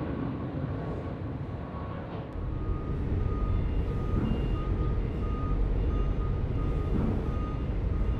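A vehicle's reversing alarm beeping about twice a second over a low rumble that gets louder about two seconds in.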